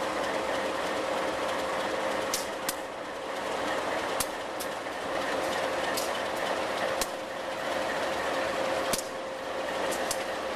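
Diesel locomotives idling: a steady engine drone with a constant whine running through it, broken by a scattering of sharp clicks.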